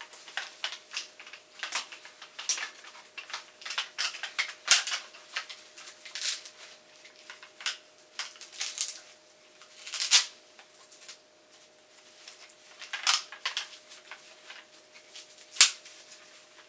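Folded trekking poles being handled and fitted to a running vest: irregular light clicks, clacks and rustles of pole sections, plastic fittings and cord, with a few louder knocks about 5, 10, 13 and 15 seconds in.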